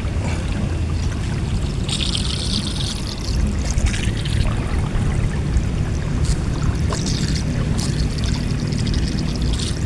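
Water splashing and trickling, with a louder rush of water about two seconds in and a few small splashes later, over a steady low rumble.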